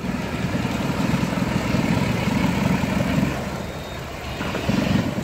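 Motorboat engine running close by, a throbbing low rumble that is strong for about three seconds, eases, then swells again briefly near the end.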